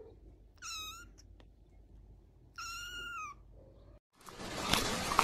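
A young kitten meows twice, high-pitched: a short mew about a second in and a longer one a couple of seconds later. Near the end the sound cuts to a loud, steady rushing noise.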